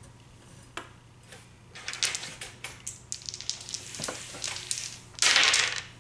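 Small game pieces and dice clicking and rattling on a cardboard board game, many quick clicks in the middle. About five seconds in comes a short, louder rustle.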